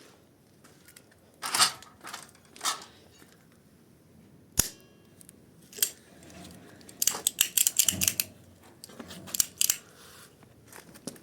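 Welding arc powered by two batteries, crackling and sputtering in short, broken bursts rather than a steady buzz, the sign of a poor, unstable arc. There is a single sharp crack about four and a half seconds in and a longer run of crackle about seven to eight seconds in.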